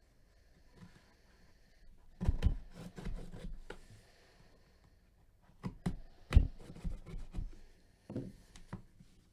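Cardboard trading-card hobby box being handled and opened with gloved hands: knocks, scrapes and rubbing of cardboard in two flurries, about two seconds in and again around six seconds in, as the end flap is pried open.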